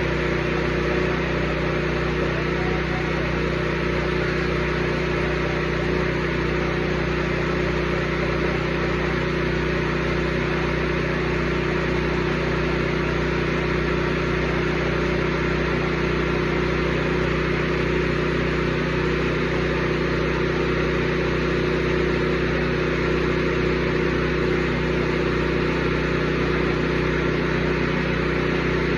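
Porter-Cable 24-gallon oil-lubricated air compressor running steadily after an oil change, its motor and piston pump making a constant hum with a fast, even pulse.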